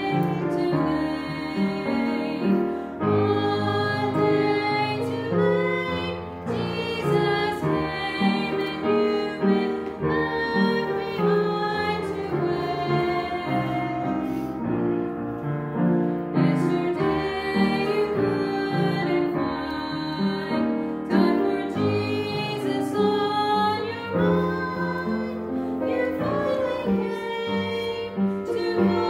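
Two women singing a gospel song as a duet with instrumental accompaniment, their sung notes held and wavering.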